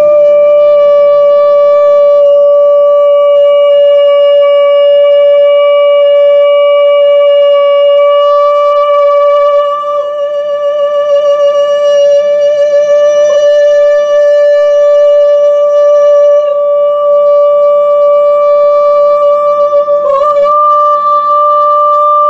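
Women's voices holding one long sung note in unison, blending into a single steady tone, with a few small wavers around the middle and near the end.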